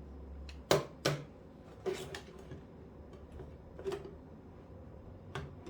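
A few light clicks and knocks of small objects being handled and set down, the loudest two close together about a second in, with a low steady hum underneath.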